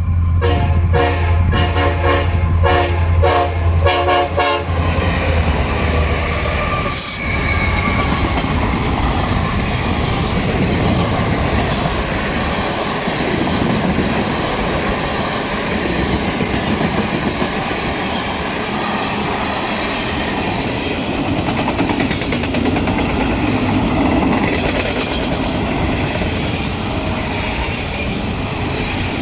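EMD SD70ACe diesel locomotive sounding its multi-chime air horn in a rapid series of short blasts over the low drone of its engine for the first five seconds or so. After that the train rolls by in a steady rumble, its wheels clattering over the rails.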